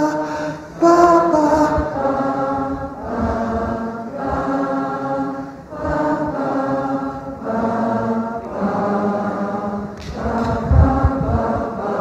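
A large audience singing in unison, about eight held notes of a second or so each, one after another, stepping up and down the pentatonic scale as they are cued.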